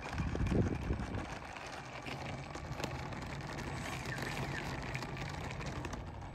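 Electric ducted fans of a Freewing P-8 Poseidon RC jet running low as it rolls along the runway, with a gust of wind hitting the microphone in the first second.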